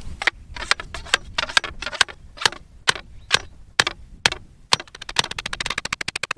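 Claw hammer driving a wooden yardstick stake into the ground: sharp blows roughly two a second, then near the end a rapid run of much quicker, even taps.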